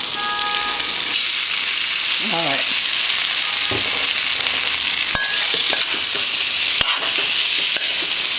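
Pulled pork and barbecue sauce sizzling steadily in an aluminium pan on the stove while being stirred, with a couple of sharp knocks of the utensil against the pan in the second half.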